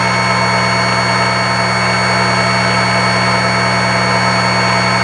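Benchtop mini drill press motor running steadily at speed, a constant hum under a high whine, spinning a tiny drill bit that is being used as a router.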